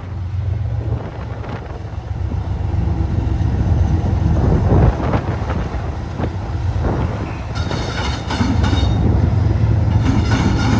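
A Canadian Pacific GE ES44AC diesel locomotive passes close by with its engine rumbling, loudest about halfway through. It is followed by loaded covered hopper cars whose wheels clack over the rail joints, with the clacks coming thick and sharp in the last few seconds.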